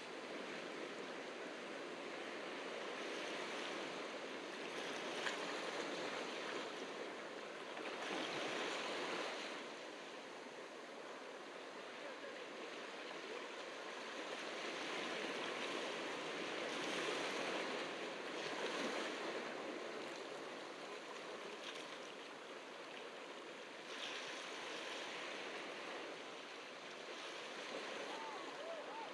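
Ocean surf breaking and washing up the beach, swelling and ebbing every few seconds.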